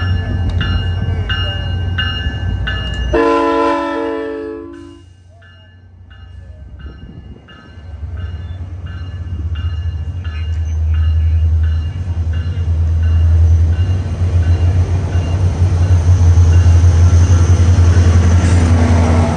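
SunRail commuter train moving through the station. A bell rings steadily, about two and a half strokes a second, and a horn sounds once for about a second and a half around three seconds in. The low rumble of the MP32PH-Q diesel locomotive pushing at the rear then builds as it nears and is loudest near the end.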